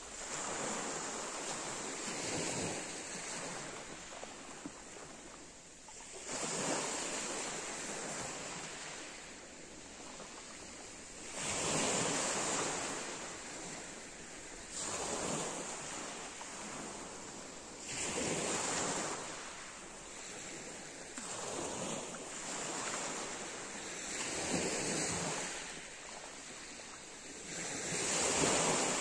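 Small sea waves breaking and washing up a pebble beach, the surf swelling and fading every few seconds.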